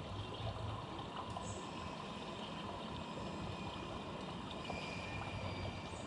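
Steady outdoor background noise: a low rumble under a constant hiss, like distant traffic, with a faint high chirp about a second and a half in.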